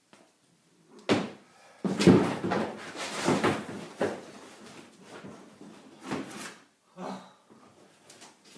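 Polyethylene Old Town Vapor kayak bumping and scraping on a wooden floor as the paddler shifts in it: a run of knocks with rubbing between them, loudest in the first half, then two more knocks later on.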